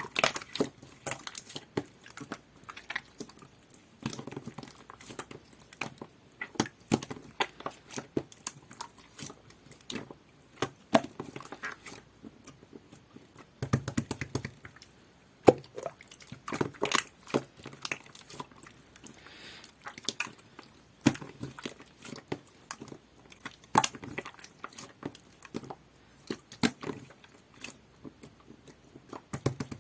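Hands squishing, pressing and stretching jelly-textured slime, making irregular wet clicks and pops.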